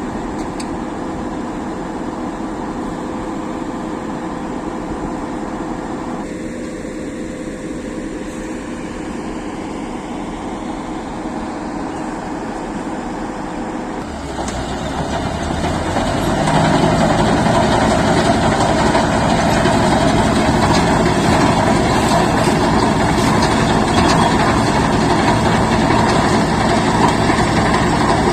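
Combine harvester engine and machinery running steadily. The sound changes abruptly about halfway through and grows louder over the next couple of seconds, into a fuller, heavier drone.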